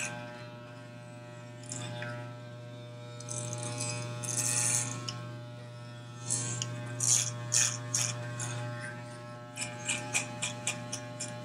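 Electric hair clippers buzzing steadily, with a rougher, higher rasp each time the blades bite into hair on an upward pass through a fade, several times over.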